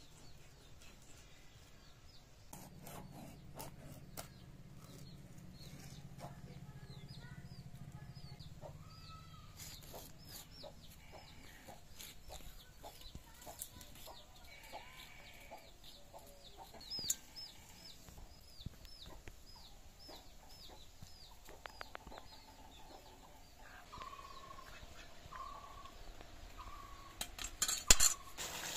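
Chickens: a chick peeping over and over in short, high, falling chirps, and a hen clucking a few times near the end. Light clicks and scraping of fish being cut on a boti blade run underneath, and a sharp clatter comes near the end.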